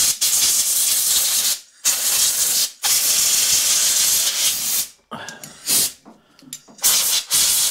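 Compressed air blasting from an air-line nozzle in a string of hissing bursts, some lasting a second or two and some short puffs, blowing carb cleaner and loosened grime off a small-engine carburettor bracket.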